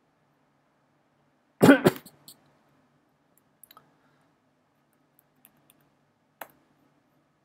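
A person coughs once, a loud double burst about a second and a half in, followed by a few faint computer clicks as text is edited.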